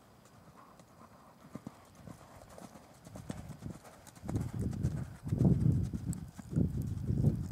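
Horse cantering on a sand arena: dull hoofbeats, faint at first, growing much louder about four seconds in as the horse comes nearer.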